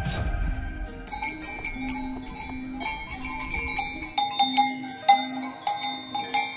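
Background music led by bright, ringing bell-like tones over a low note that repeats at an even pace.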